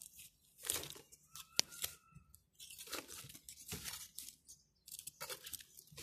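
Hands digging and sifting through loose soil in a fabric grow bag, searching for potatoes: faint, irregular crunching and rustling that comes in short bursts.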